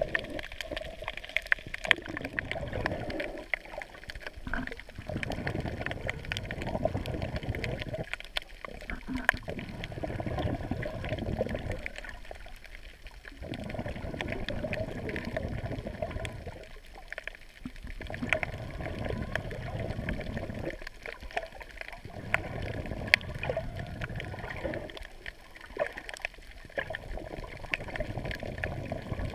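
Muffled seawater sloshing and gurgling around a GoPro Hero 3 waterproof housing held just under the surface, with scattered sharp clicks. It comes in surges of a few seconds, broken by short quieter pauses about every four seconds.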